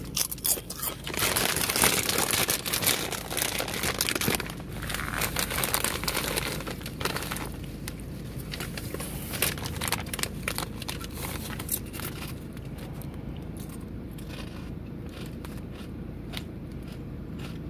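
A foil-lined potato chip bag crinkling loudly as it is handled and pulled open, then softer, scattered crinkles as chips are picked out of it over the second half.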